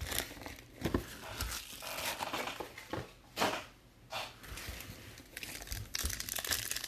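Foil-wrapped 2019 Bowman's Best trading card packs and their cardboard hobby box being handled: rustling and scraping as the packs come out of the box, then a foil pack crinkling in the hands near the end.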